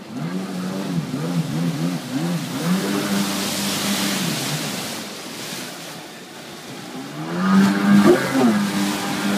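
Kawasaki stand-up jet ski's two-stroke engine revving up and down in a string of short blips, then held steady, dipping and rising again to its loudest rev near the end. A hiss of churned spray comes in about three to five seconds in.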